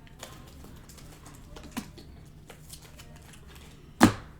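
Scattered light clicks and taps, with one sharp, loud knock about four seconds in.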